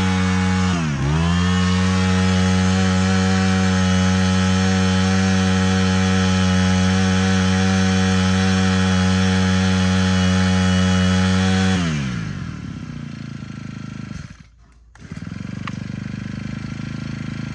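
Honda GX25 25cc four-stroke brush cutter engine running at high throttle, with a quick dip in revs about a second in, then held steady. About twelve seconds in the throttle is released and it falls to a lower, quieter idle, dropping out briefly a couple of seconds later before running on.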